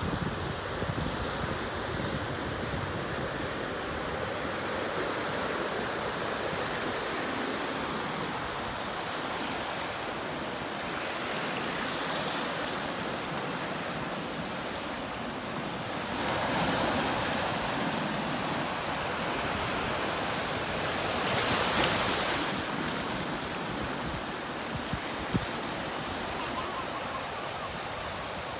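Ocean surf washing over a rocky shoreline: a steady rush of water, with two louder surges of breaking waves a little past the middle and a single sharp click near the end.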